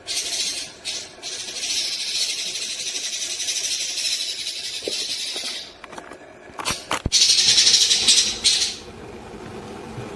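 Paok pancawarna (banded pitta) giving harsh, hissing rasps: one long rasp of about four seconds, then after a short pause a run of shorter rasps.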